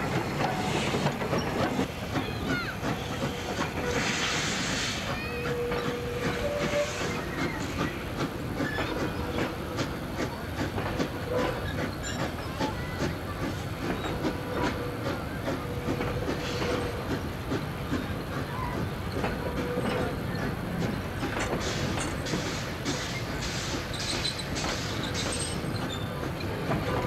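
Wooden heritage passenger carriages of a steam-hauled train rolling past, their wheels clicking steadily over the rail joints. A burst of steam hiss comes about four seconds in.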